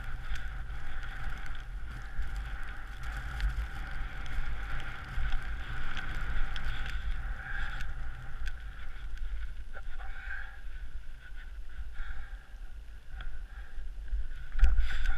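Skis sliding and hissing through soft snow, with wind rumbling on the helmet camera's microphone. There is a louder thump near the end.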